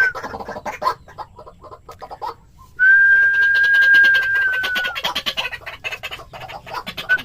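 A pair of white-breasted waterhens calling: a run of short, rapid call notes, and about three seconds in a long, steady whistled note lasting about two seconds that dips slightly at its end.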